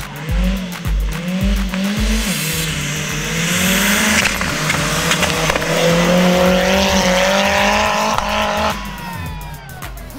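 Music with a steady beat at first. From about three seconds in, a drag-racing 4x4's engine accelerates hard over a loud rushing noise, its pitch slowly climbing for about six seconds before falling away near the end.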